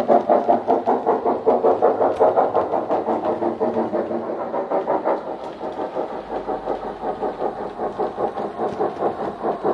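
Hornby Britannia model steam locomotive's DCC sound decoder playing a Wheeltappers steam sound file through a speaker in the tender: steady exhaust chuffs at about four to five a second. The chuffs grow fainter in the middle and louder again near the end as the locomotive comes back round.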